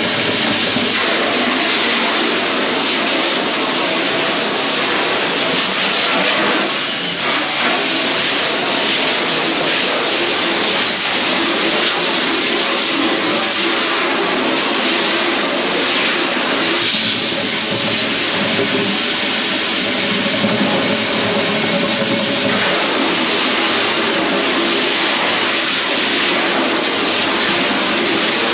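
Dishwasher running: a steady hum from the pump motor under a constant rush of spraying and draining water.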